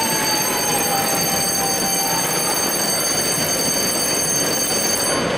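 Dutch level-crossing warning bell ringing continuously as a steady, high, ringing tone over a constant background hubbub. It cuts off suddenly about five seconds in.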